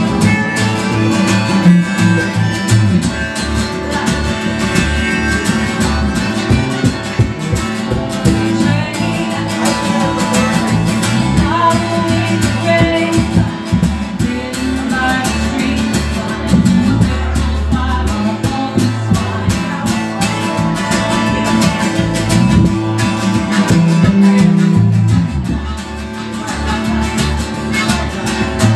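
Live acoustic band music led by a strummed acoustic guitar, with a held melody line over it.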